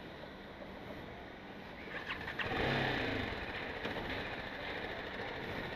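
BMW G310GS's single-cylinder engine cranked on the electric starter and catching about two and a half seconds in, then running steadily at idle.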